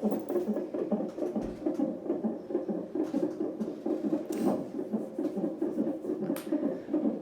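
Fetal heartbeat picked up by a CTG monitor's Doppler ultrasound transducer: a fast, even, rhythmic whooshing pulse. A few short scratchy noises break in about three, four and six seconds in.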